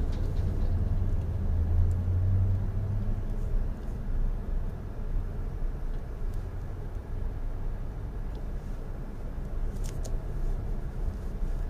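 Car running and rolling slowly, heard from inside the cabin: a steady low rumble of engine and road noise, with a stronger low hum for the first three seconds that then eases.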